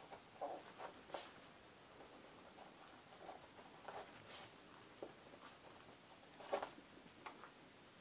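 Faint, short scrapes of a whittling knife slicing thin shavings from a wooden blank, about a dozen cuts spaced irregularly, the loudest about six and a half seconds in. These are the thin shavings carved for a fan bird's feathers.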